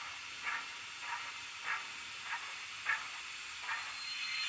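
Recorded steam-locomotive sound from a Wheeltappers DCC sound file, played through the Bachmann Webb Coal Tank model's small sugarcube speaker: slow, even exhaust chuffs, a little under two a second, over a steady hiss. Near the end the hiss grows louder and a thin high tone comes in.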